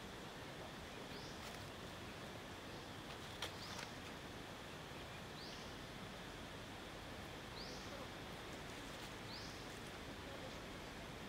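Quiet forest ambience: a steady hiss with a short, high rising chirp repeated about every two seconds. A single sharp click comes about three and a half seconds in.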